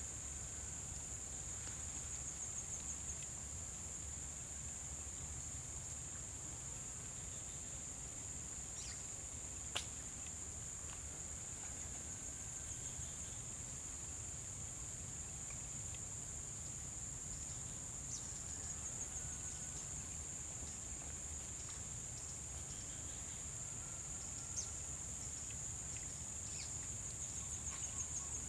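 Steady, high-pitched insect trilling, with one sharp click about ten seconds in.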